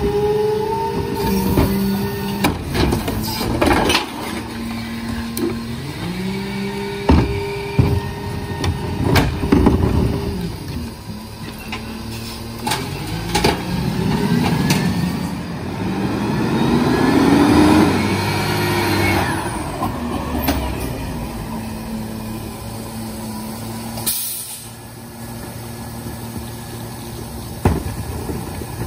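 New Way rear-loader garbage truck on a recycling route: its diesel engine runs raised for the hydraulics with a steady whine while the cart tipper dumps a cart, and the cart bangs against the hopper several times. The truck then pulls ahead with its engine pitch rising and falling as the packer cycles on the go, and an air brake hisses once as it stops.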